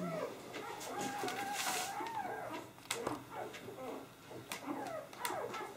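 Young Drentsche Patrijshond puppies whimpering and squeaking with high, wavering cries, with a few light clicks and knocks from handling.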